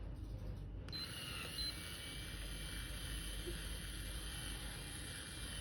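Small electric motor of an automatic rotating curling iron whirring steadily as it turns to draw a section of hair into its chamber, starting suddenly about a second in, over a low steady hum.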